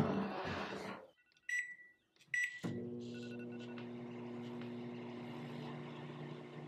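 Rustling of paper and cardboard for about a second, then two short beeps and a microwave oven starting up with a steady hum that runs on.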